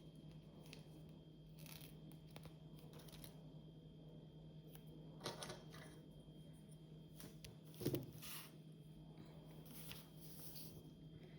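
Faint rustling and light clicks of a Lego sticker being peeled from its sheet and pressed onto a plastic piece, with sharper taps about five and eight seconds in, over a steady low hum.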